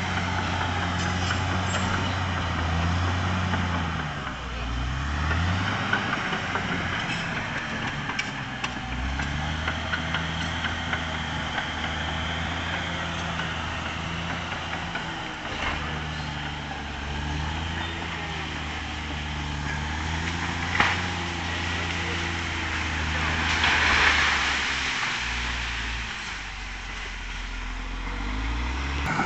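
Caterpillar D6R XL bulldozer's diesel engine running steadily under load, its pitch dipping and recovering twice, with a few sharp knocks and a brief rush of noise about three-quarters of the way through.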